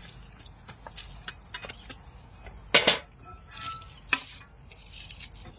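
Cooking utensils clinking and knocking against a pot, in scattered light taps, with a louder clatter about three seconds in and a sharp knock a second later.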